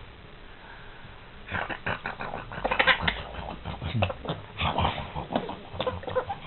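A dog making a rapid run of short noisy sounds mixed with brief high squeaky cries and a low falling grunt, starting about a second and a half in.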